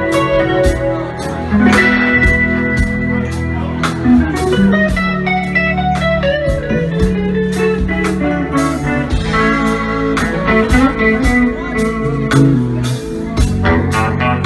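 Live band playing an electric guitar lead over bass, keyboard and drums, with sustained and bending guitar notes over a steady drum beat.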